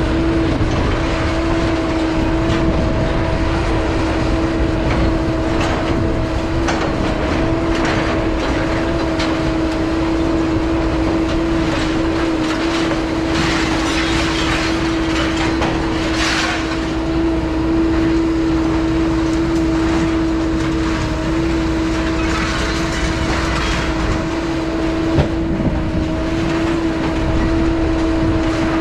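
Road noise from a moving vehicle: a steady low rumble under a constant droning hum, with light rattles now and then.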